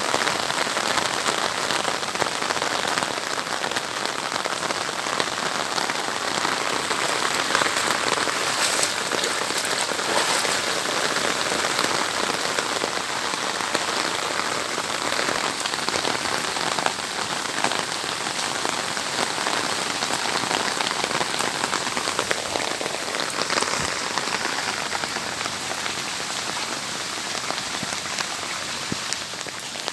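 Steady rain falling on a surface: a dense hiss with many fine drop patters, easing slightly near the end.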